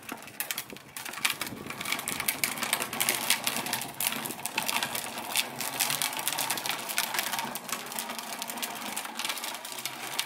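Hard plastic wheels of a child's ride-on toy motorbike rolling over rough concrete road, a continuous fast, irregular rattle of small clicks.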